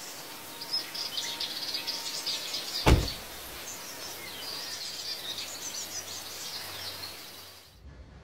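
Small birds chirping over a steady outdoor hiss, with one loud car door slam about three seconds in. The outdoor sound cuts off shortly before the end.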